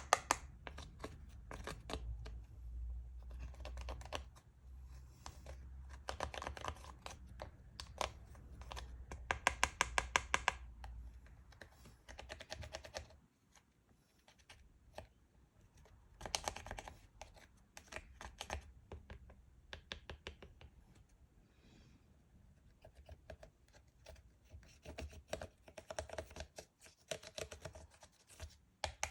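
Slime being squished, stretched and folded by hand, giving off bursts of rapid sticky clicks and pops from trapped air. A low rumble underneath stops about halfway through.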